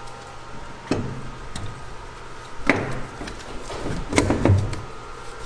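Four dull knocks and clunks of heavy metal parts being handled and set down during differential setup, over a steady low shop hum.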